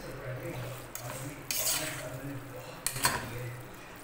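A spoon scraping and clinking against a steel pot as spaghetti is tossed and mixed, with two sharper knocks about a second and a half and three seconds in, over a steady low hum.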